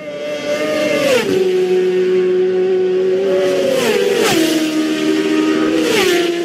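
Racing motorcycles passing at full speed, three in quick succession. Each engine's high note drops sharply in pitch with a rush of air as it goes by: about a second in, again about four seconds in, and near the end.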